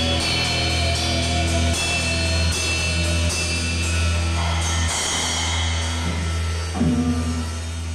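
Live amplified rock band, electric guitars and drum kit, playing long ringing chords with repeated cymbal crashes; it thins out and gets quieter near the end.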